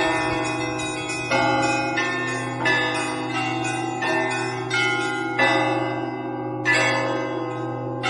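Russian Orthodox church bells rung in a peal (zvon) by a single bell ringer: smaller bells struck in a steady rhythm, about one stroke every two-thirds of a second, each ringing on over the continuous low hum of a large bell.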